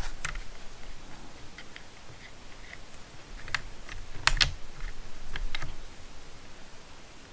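Scattered light clicks and taps of small plastic RC suspension parts, screws and bolts being handled and fitted during assembly of a GMADE BOM rear cantilever linkage, the loudest click about four seconds in.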